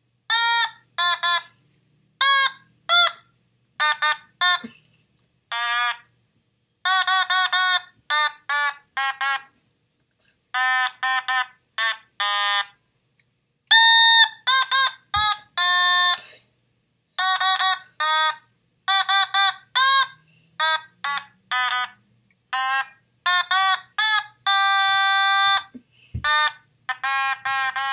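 Otamatone, the electronic note-stem instrument, played in many short "bwah" notes as its rubber mouth is squeezed open and shut. The notes come in quick groups with short pauses between them, with a few longer held notes, the longest about three seconds from the end.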